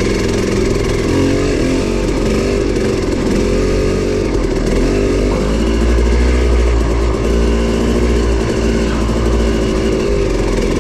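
Dirt bike engine running on a rough trail, its pitch rising and falling as the throttle is worked.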